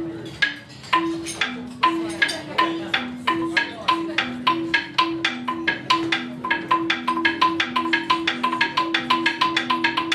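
Background music: quick repeated struck notes over two alternating low tones, the strikes coming faster and faster.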